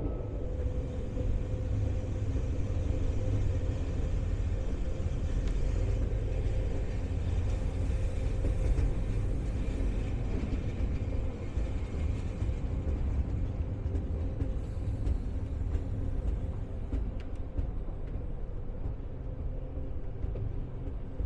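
Appenzeller Bahnen rack train running, heard from inside the car: a steady low rumble with an even hum from the drive.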